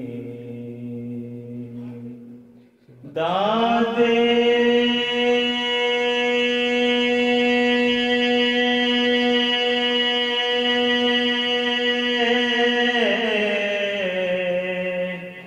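A devotional chant with long held notes. After a brief lull about three seconds in, a voice holds one note steady for about ten seconds, then shifts pitch and fades near the end.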